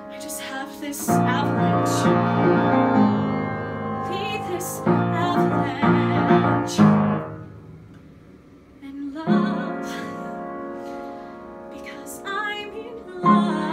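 A young woman singing a musical theatre ballad over piano accompaniment, the piano striking sustained chords and the voice holding long notes with vibrato. It goes quieter for a moment near the middle, then swells again.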